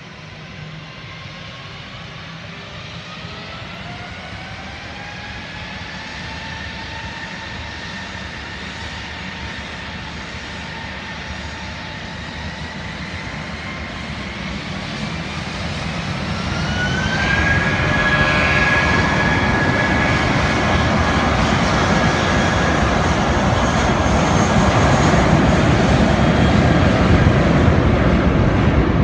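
Wizz Air Airbus A320-family jet airliner's engines spooling up for takeoff: a whine that rises in pitch over the first several seconds. About 17 seconds in, a second, sharper rise follows as the engines go to takeoff power, and the sound grows into a loud roar as the aircraft starts its takeoff roll.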